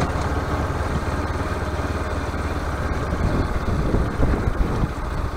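Bajaj Pulsar RS200's single-cylinder engine running steadily as the motorcycle rolls along, mixed with wind and road noise on the action-camera microphone.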